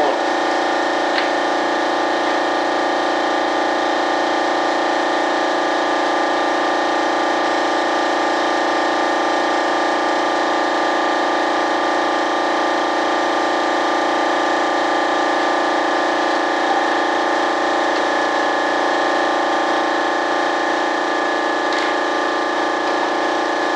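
Shop air compressor running with a steady motor hum that holds constant pitch and loudness throughout.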